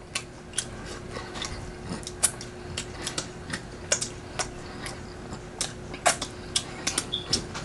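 Close-up eating sounds: irregular sharp clicks, a few every second, with a faint steady hum underneath.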